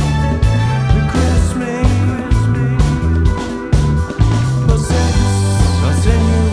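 Rock music: a band track with a bass line stepping between notes under regular drum hits and layered guitar or keyboard tones.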